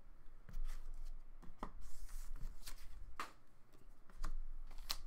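Hard plastic trading-card cases being handled and set down on a table, giving about half a dozen light clicks and taps a second or so apart.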